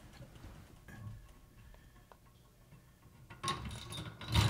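Faint ticks and clicks as the braided supply hose's coupling nut is turned by hand off the toilet fill valve's plastic shank, with louder scraping and rattling of the hose near the end as it comes free.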